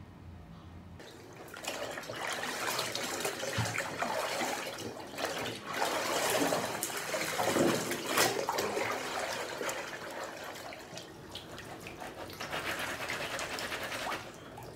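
Bathwater sloshing and splashing as a pair of soaked raw denim jeans is hand-washed in a tub, lifted out and dunked back, with water streaming off the heavy denim. It starts about a second in and swells and fades unevenly.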